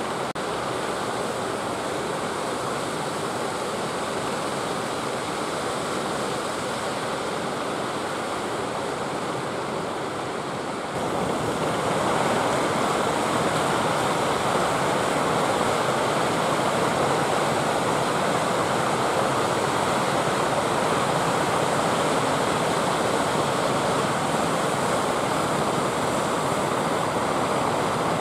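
Ocean surf breaking and washing on a beach: a steady rushing wash of waves that gets louder about eleven seconds in.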